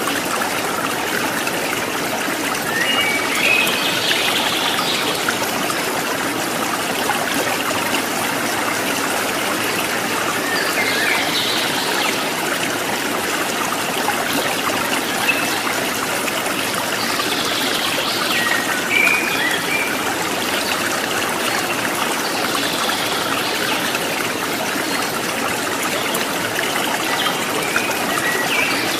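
Steady running water like a babbling stream, with brighter trickling spells every several seconds.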